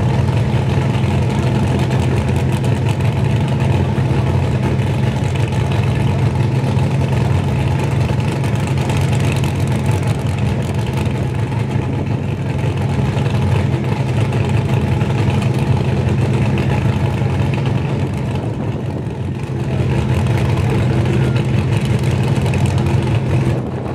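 Supercharged drag car engine idling at the start line, loud and steady at an even pitch, with a brief small dip in level about three quarters of the way through.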